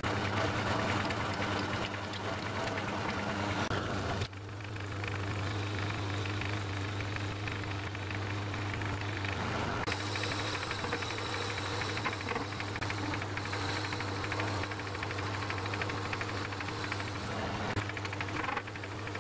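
Metalworking lathe running under power, a steady hum with a rattle from the drive and spinning chuck while a small steel part is machined. The sound dips briefly about four seconds in, and a higher hiss joins around ten seconds in.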